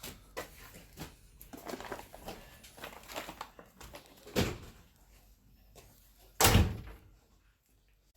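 Rustling and light knocks, a sharp thump about four and a half seconds in, then a louder, heavier thump about six and a half seconds in.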